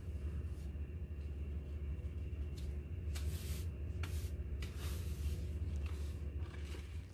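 Stiff-bristled hand scrub brush sweeping lint and dust across floor tiles in a series of short scraping strokes, starting about three seconds in. A steady low hum runs underneath.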